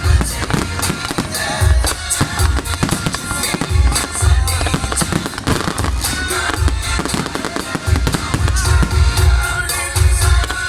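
Fireworks going off repeatedly, with deep booming bursts and sharp crackles, over music played loudly through loudspeakers.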